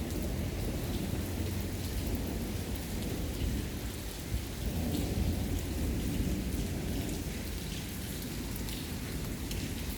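Rain falling steadily during a thunderstorm, with a continuous low rumble of thunder and scattered drops ticking close by.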